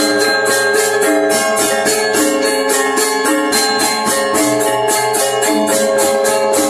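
Balinese gamelan playing, the reong kettle gongs and bronze metallophones sounding quick interlocking melodic figures. Fast, even cymbal-like strokes, about four to five a second, drive the rhythm.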